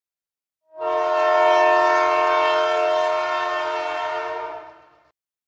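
Train horn sounding one long, steady blast of about four seconds that starts suddenly and fades out near the end.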